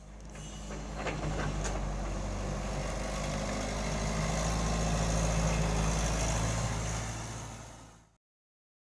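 Excavator diesel engine running steadily at a low hum, with a couple of sharp clicks about a second and a half in. It fades and cuts off near the end.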